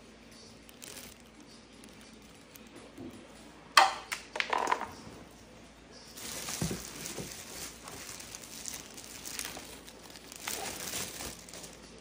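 Plastic packaging bags crinkling as they are handled and pulled off the unboxed parts. The loudest part is a quick flurry of crackles about four seconds in, followed by steadier crinkling through the second half.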